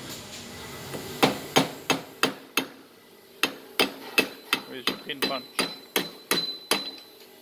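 Hammer tapping on metal parts of a hydraulic cylinder: a quick run of about five strikes, a short pause, then a longer run of about a dozen at roughly three a second, with a faint ringing tone over the later strikes.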